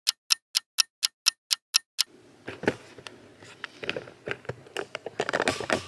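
A clock ticking evenly, about four ticks a second, which stops about two seconds in. Scattered light knocks and clicks follow.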